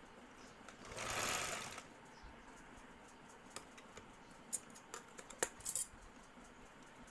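A domestic sewing machine stitching through fleece fabric in one short run of under a second. A few seconds later come several sharp clicks and taps.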